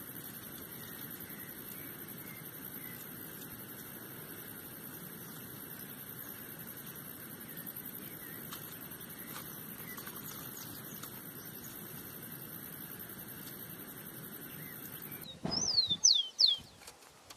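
Steady open-air hiss with a constant high-pitched buzz and faint, scattered bird chirps. About 15 s in, a rufous-collared sparrow (tico-tico) sings loudly and close: a short run of clear whistles, each sliding downward.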